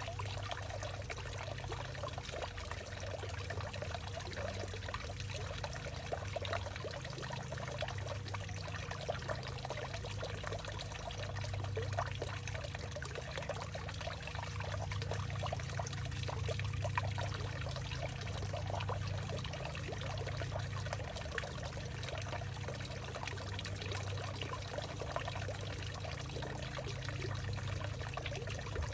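Water trickling and pouring steadily in a hollowed-out tree, a continuous patter of small splashes over a steady low hum.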